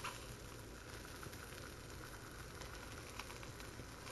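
Stingray pieces frying in a pan: a faint, steady sizzle with a few small pops.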